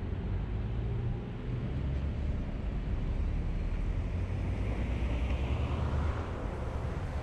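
Car driving: a steady low rumble of engine and tyres on the road, with a brief swell of hiss about five seconds in.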